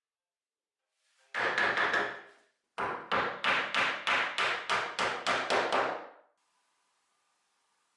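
A quick series of hand-tool strokes on wood: a short run of a few, then about a dozen evenly spaced strokes at roughly three or four a second, stopping suddenly.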